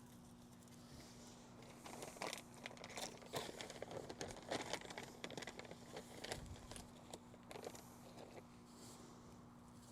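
Crinkling and crackling, a quick irregular run of small clicks starting about two seconds in and dying away near the end.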